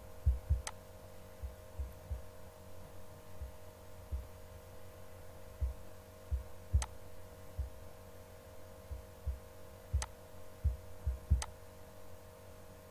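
Steady electrical hum under irregular soft low thumps, with four sharp computer-mouse clicks as topic tiles are selected on screen.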